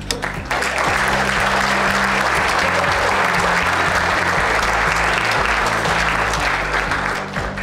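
Audience applauding, starting about half a second in and fading near the end, over background music.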